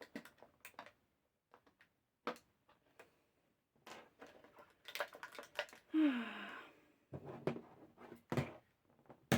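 Action figure packaging being handled: scattered clicks and taps of plastic pieces and blister tray, with a short falling sigh about six seconds in.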